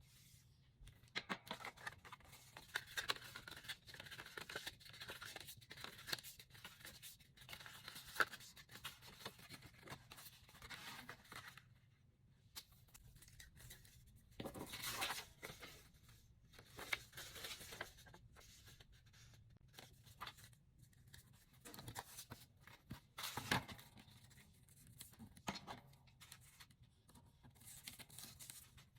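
Paper and cardstock being handled close up: faint, irregular rustles, scrapes and short clicks, with a few louder bursts of paper noise.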